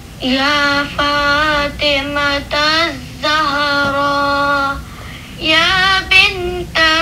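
A child singing a slow melody, holding long notes, with a brief break about five seconds in.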